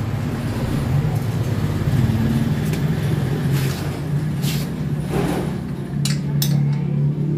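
Honda RS125 Fi's small single-cylinder four-stroke engine idling steadily, with a few sharp metallic clicks near the end.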